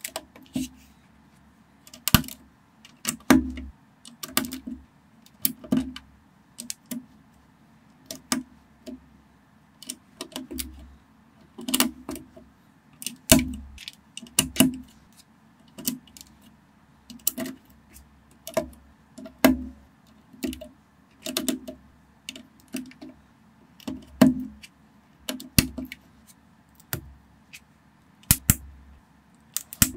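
Lego-style plastic bricks being fitted and pressed together by hand: a string of sharp plastic clicks and light clatters at irregular intervals, some with a dull knock as the model is pressed against the table.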